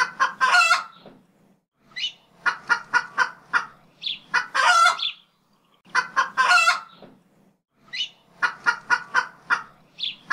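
Chicken sound effect clucking and crowing. A short rising call, a quick run of about five clucks and a longer crowing call repeat in the same order about every four seconds, like a looped clip.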